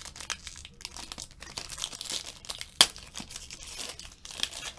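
Foil trading-card pack wrapper being torn open and crinkled by hand, a dense run of crackles with one sharp, louder crackle a little under three seconds in.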